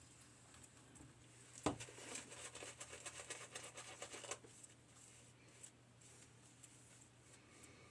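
A sharp knock, then about two and a half seconds of crackly scraping against lathered stubble during a wet shave.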